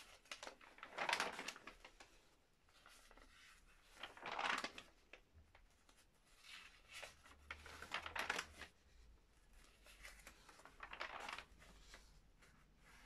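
Large paper pages of a thick photocopied artist's book being turned by gloved hands: soft paper rustles and swishes, about five separate page turns.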